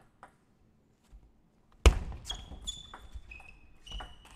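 Table tennis rally: sharp clicks of the ball off rackets and table, mixed with short high squeaks of shoes on the court floor. It opens with a second and a half of near silence, broken about two seconds in by one loud knock.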